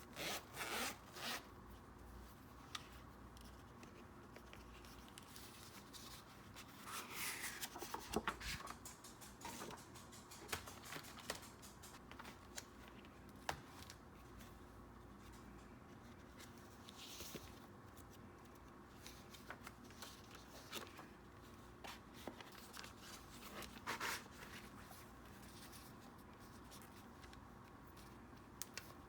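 Packaging being handled and opened by hand: scattered short bursts of rustling and scraping, with small clicks and taps between them.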